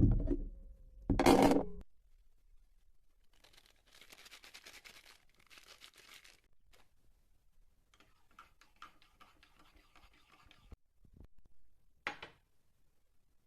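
Two loud knocks in the first second and a half, then faint scraping and rustling in a small room, with one more short sharp noise near the end.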